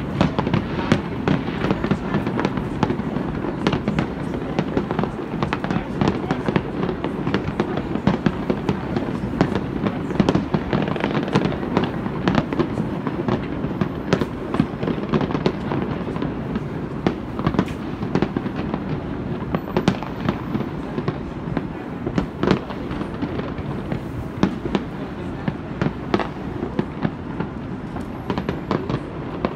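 Aerial fireworks display: a dense, continuous barrage of bangs and crackles over a steady rumble, growing a little sparser in the last few seconds.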